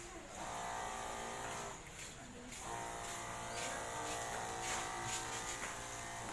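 Electric pump of a battery-powered knapsack sprayer running with a steady buzz while spraying fly insecticide. The buzz drops out briefly near the start and again for about half a second around two seconds in.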